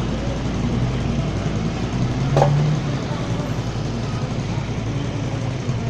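Street traffic: motorcycle and vehicle engines passing, over a steady low rumble. A brief sharp sound stands out about two and a half seconds in.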